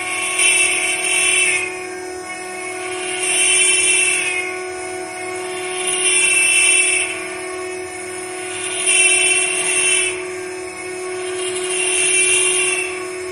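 CNC router's electric spindle running with a steady whine. About every three seconds a louder, harsher surge of cutting noise rises over it and falls away, five times in all, as the bit works the wooden slab.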